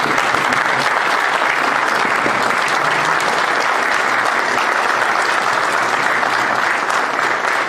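A roomful of people applauding, dense and steady clapping.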